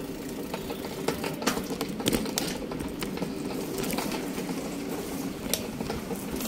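A steady engine-like hum with scattered sharp clicks and knocks through it.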